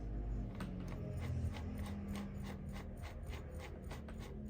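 Tuning gear train of a Central Electronics 100V VFO clicking as the dial is turned by hand, about four regular clicks a second over a low steady hum.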